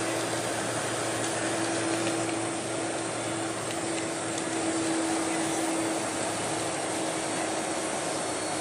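Steady cabin noise inside a Boeing 747-400 taxiing on the ground: an even rushing air noise with one constant low hum underneath.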